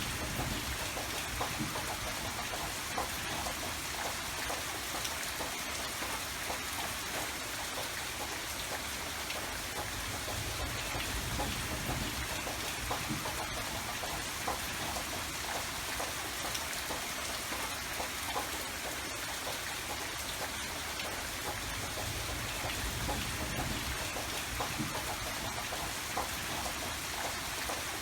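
Steady rain falling, with the patter of individual drops striking a surface.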